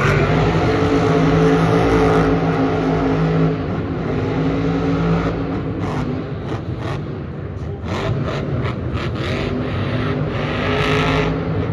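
Monster truck engine revving hard and loud for a few seconds, easing off, then pulling again in shorter pushes.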